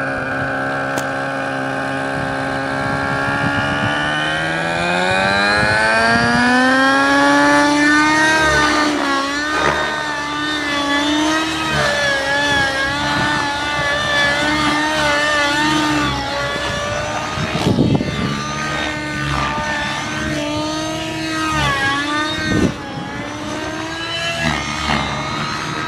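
Synergy N5C nitro RC helicopter's glow engine and rotor spooling up from idle, the pitch rising steadily over the first several seconds. It then runs at flight speed, the pitch wavering up and down under changing load during 3D aerobatic flying.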